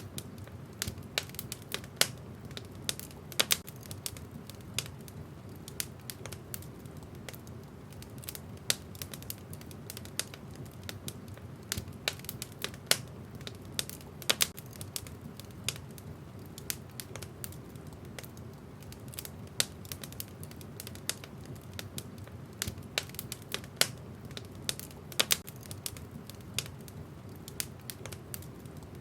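Wood fire burning in a fireplace: irregular crackles and sharp pops from the burning logs over a steady low rumble of the flames.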